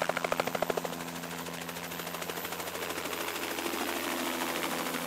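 Light helicopter in flight: the main rotor chops in a rapid, even beat over a steady turbine hum. The chop is strongest in the first second and then settles lower.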